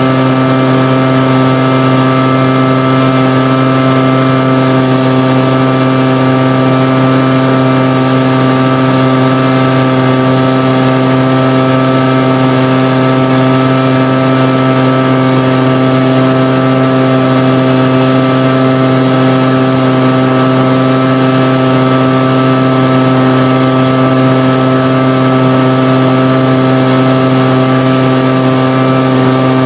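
Homemade turbocharger-based jet engine running steadily at idle: a loud, constant drone made of several steady tones, with no change in pitch.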